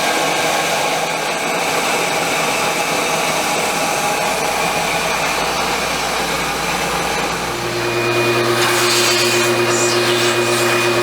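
Milling machine spindle with a 5/16 end mill running steadily at speed. About seven seconds in, the sound changes: a steady lower hum sets in, with a rougher hiss that comes and goes near the end.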